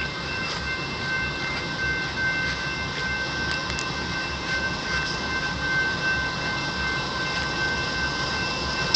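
A stopped train's diesel locomotive idling: an even, pulsing low rumble with several constant high-pitched tones over it.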